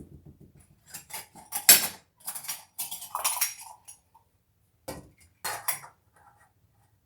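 Kitchen dishes and utensils clattering and clinking in a series of knocks and scrapes, the loudest a little under two seconds in.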